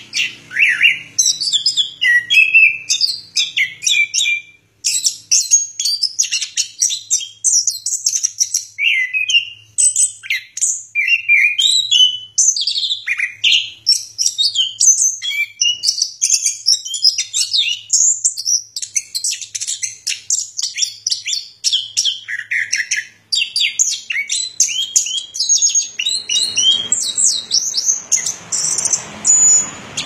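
Chestnut-capped thrush (anis kembang) singing a long, unbroken stream of quick, varied high whistles and twittering phrases. The song pauses briefly about five seconds in and again a little after twenty seconds.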